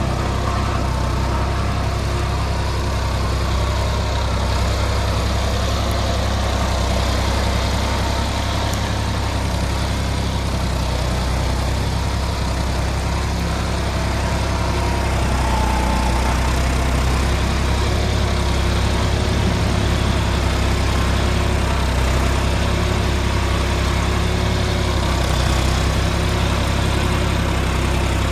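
John Deere 5310 tractor's three-cylinder diesel engine running steadily under load, pulling a two-bottom reversible mouldboard plough through wet soil; it grows slightly louder about halfway through.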